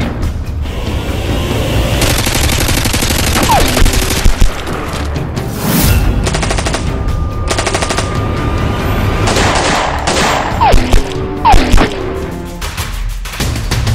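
Film gunfire sound effects: several rapid bursts of automatic fire and a few louder single bangs, over a driving action music score.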